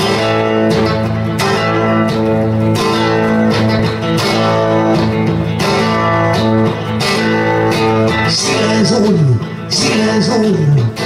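Instrumental intro of a rock song: electric guitar chords over a steady beat, with falling, sliding notes near the end.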